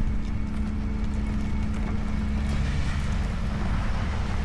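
Engines of land-clearing heavy machinery running steadily in the background: a continuous low rumble with a steady hum over it.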